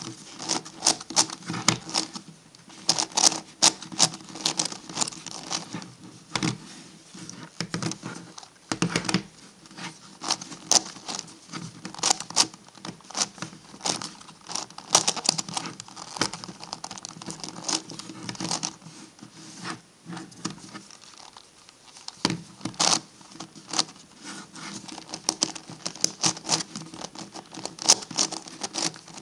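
MF8 Gigaminx puzzle being turned by hand: a continuous run of quick plastic clicks and clacks as its faces are twisted, coming in uneven runs with short pauses.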